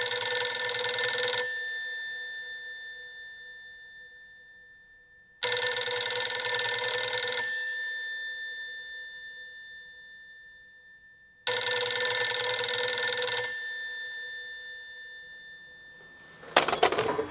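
Old rotary-dial desk telephone's bell ringing: three rings of about two seconds each, about six seconds apart, each ringing on and fading before the next. A short clatter near the end.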